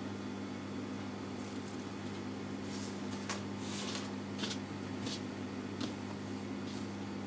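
Soft rustling and swishing of cloth as a garment is handled and smoothed by hand on a cutting mat, in a series of short brushes, over a steady low hum.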